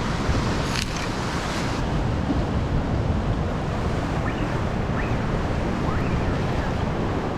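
Steady wash of ocean waves and surf against the sea cliff below, with wind rumbling on the microphone.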